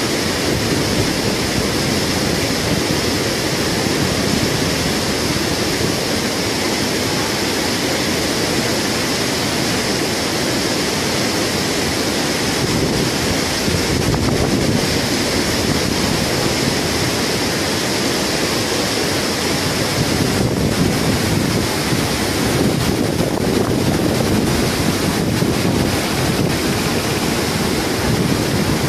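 Steady rush of a fast-flowing, shallow muddy river current: a constant even noise with no breaks.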